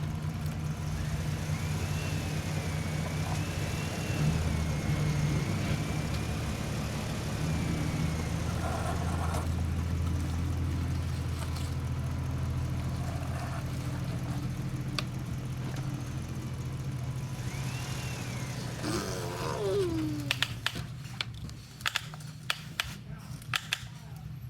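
A vehicle engine running steadily with a low hum and a faint wavering whine. Near the end there are a number of sharp clicks and knocks.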